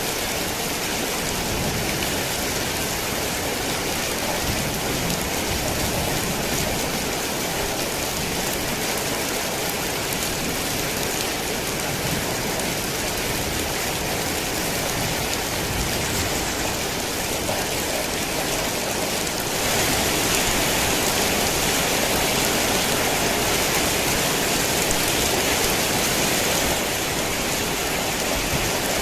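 Heavy rain falling steadily: a dense, even hiss with no breaks. About two-thirds of the way through it grows slightly louder and brighter, easing back a little near the end.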